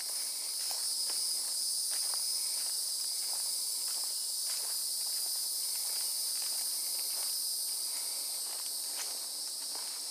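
Footsteps on dry leaf litter along a dirt trail, at a walking pace, over a steady high-pitched chorus of insects.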